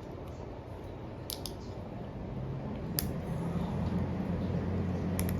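A few small, sharp clicks and taps of hand tools on a smartphone's parts during disassembly, over a steady low hum.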